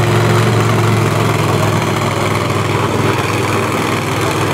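Monster truck engine running steadily at low revs, a deep, even engine note with no revving.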